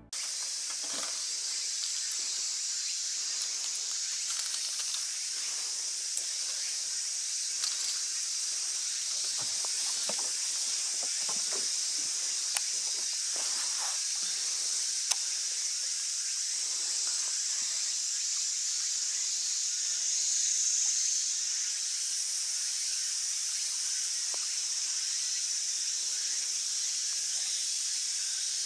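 A steady, high-pitched, hissing chorus of summer cicadas, with a few faint clicks and knocks.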